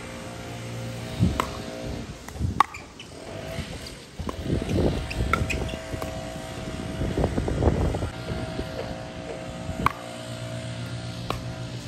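Pickleball paddles striking the ball: a handful of sharp pops, two close together near the start and two more near the end, over a steady low hum.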